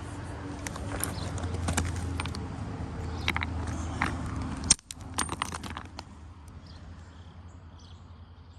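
Chert stones clacking and clicking against each other, a run of sharp knocks with the loudest strike a little before five seconds in, then quieter.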